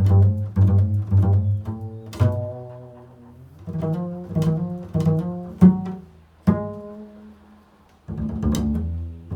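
Low plucked string notes in an improvised line: a quick run of struck notes, then single notes left to ring and fade before the next one.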